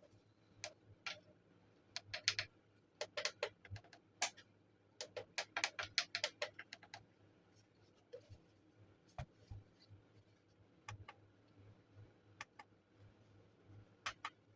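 Irregular sharp clicks and taps of small hard objects being handled, coming thick and fast in the first half and only now and then afterwards.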